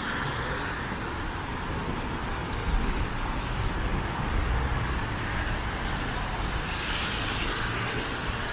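City street traffic: cars driving past with a steady hum of engines and tyres, and a brief low thump about three seconds in.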